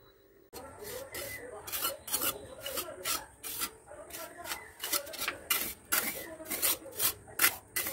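A steel mason's trowel scraping and smoothing wet cement mortar over a concrete floor, in quick repeated strokes about three a second, starting about half a second in.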